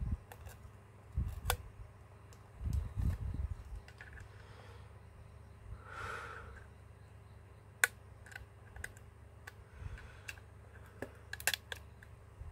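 Small clicks, ticks and scrapes of a thin pick and fingers working on a Huawei P20 lite's frame while the broken screen assembly is pried loose, with a few soft low knocks from handling the phone.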